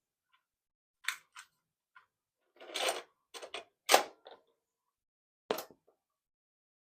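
A series of sharp mechanical clicks and clunks, eight or so, irregularly spaced with a longer clatter near the middle: a boombox's cassette deck keys being pressed and the tape handled while the slow-running deck is being tested.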